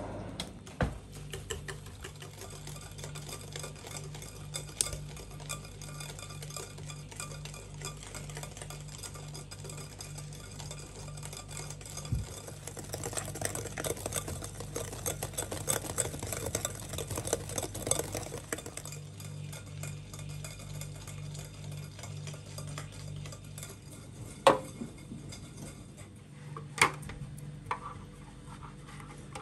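Hand wire whisk beating a creamy cake mixture in a glass bowl: steady scraping with rapid small clicks of the wires against the glass, busiest in the middle. A few sharp knocks near the end.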